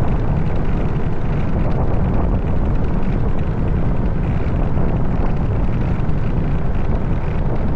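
Heavy wind rumbling and buffeting on the microphone, a loud, steady low roar with no letup.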